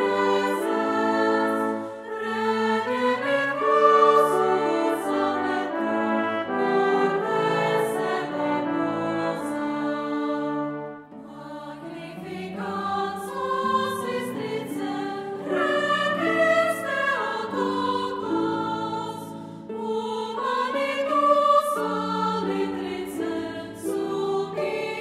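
Girls' choir singing a hymn, accompanied by brass including French horn, with a short break between phrases about eleven seconds in.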